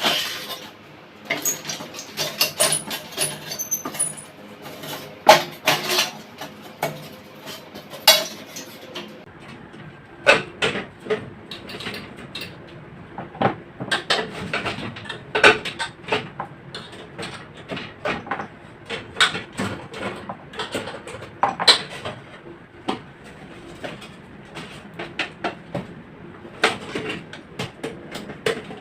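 Irregular metallic clinks, knocks and clicks of metal parts and hand tools being handled, at an uneven pace throughout.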